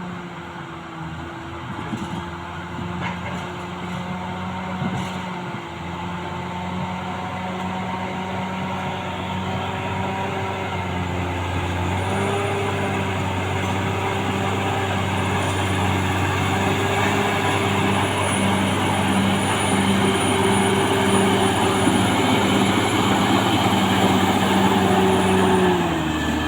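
Caterpillar D6R XL bulldozer's diesel engine running steadily under load, growing gradually louder. A thin high whine joins about halfway through, and the engine note drops near the end as it eases off.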